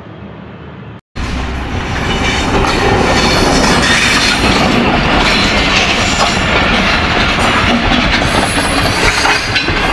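A diesel passenger train running past close by, locomotive then coaches, as a loud, dense, steady rail noise. It cuts in abruptly about a second in, after a short stretch of quieter background.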